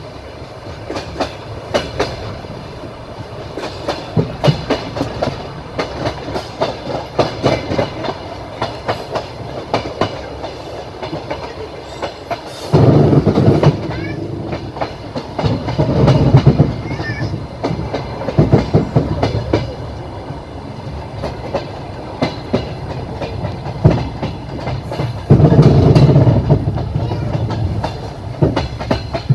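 Train wheels clattering over rail joints, heard from a moving passenger train's window. There is a steady run of sharp clicks, with louder rumbling surges three times, near the middle and toward the end.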